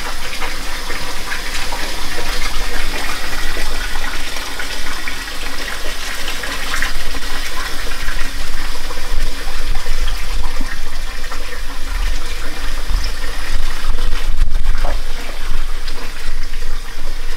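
Tap water running steadily into a stainless steel kitchen sink during hand dishwashing, with occasional light knocks.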